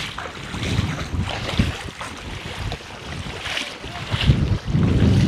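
Wind buffeting the microphone in uneven gusts, a low rumbling roar that swells louder near the end.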